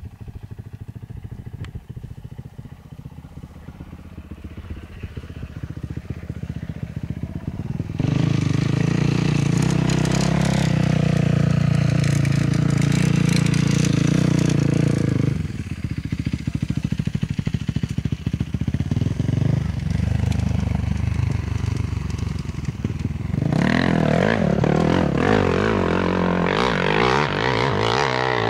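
Dirt bike engine on a hill climb, faint and growing at first. It runs loud and steady at high revs from about eight seconds in and drops back at about fifteen seconds. Near the end it is loud again, the pitch sweeping up and down.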